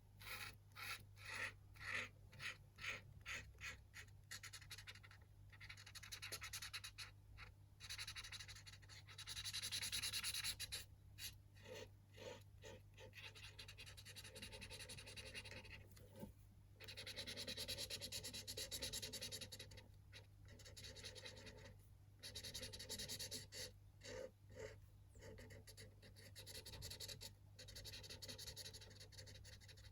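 Chisel tip of an alcohol marker scratching across colouring-book paper, faint. Quick short strokes at about two or three a second at first, then longer continuous strokes mixed with short ones.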